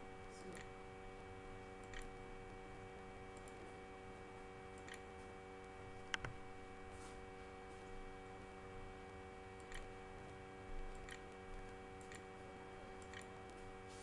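Faint, scattered computer mouse clicks, a few seconds apart, over a steady low hum.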